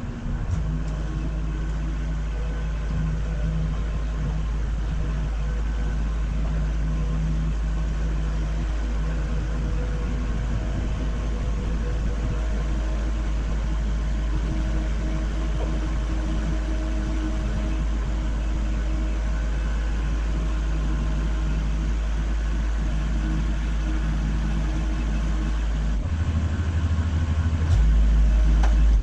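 Work-site equipment engine idling steadily, a low drone with a steady hum over it. Near the end the low note shifts and gets a little louder.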